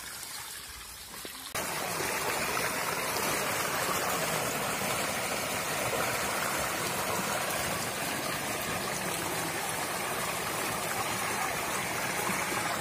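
Fast shallow stream water rushing and splashing over a woven bamboo mat wedged into the flow. It is a steady noise that steps up louder about a second and a half in.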